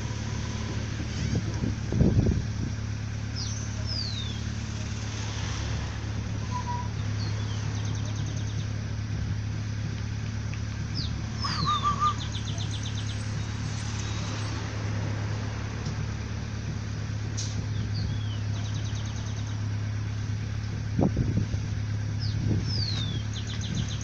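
Steady low hum of an idling engine, with birds giving short falling chirps about three times and a couple of dull thumps, one about two seconds in and another near the end.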